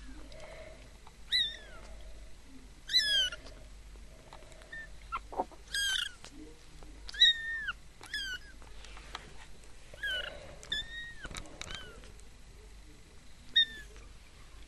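Three-week-old ginger kittens mewing: short, high-pitched calls that drop in pitch, repeated every second or two.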